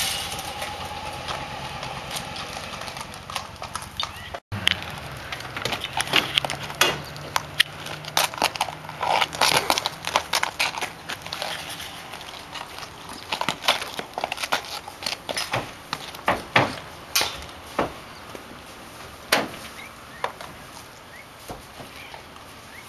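Horse's hooves clopping on pavement while a motorcycle passes with a falling hum. After a cut about four seconds in, a long run of irregular sharp knocks and hoof clatter from horses being loaded into a horse trailer.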